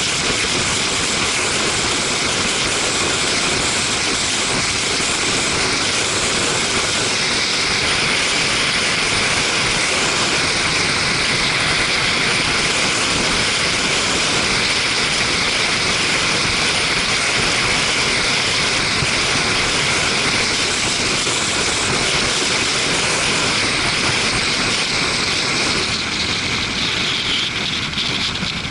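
Steady rush of wind over the camera's microphone on a motorcycle riding at speed, with the bike's running mixed into the roar; the highest part of the rush eases slightly near the end.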